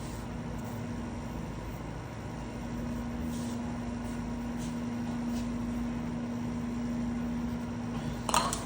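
Steady machine hum with background noise from the shop, carrying a low steady tone. A few faint light scrapes come through it, and a brief louder rustle sounds near the end.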